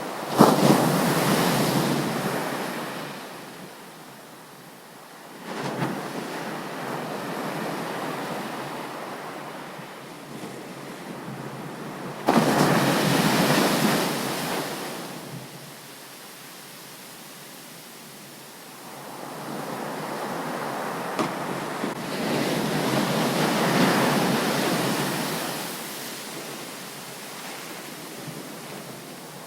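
Ocean surf: waves breaking on a beach one after another, each rising to a roar and fading away over several seconds. The loudest breaks hit suddenly about half a second in and about twelve seconds in.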